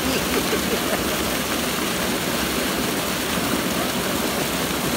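Water pouring out of a corrugated metal culvert pipe into a stream pool: a steady, even rush.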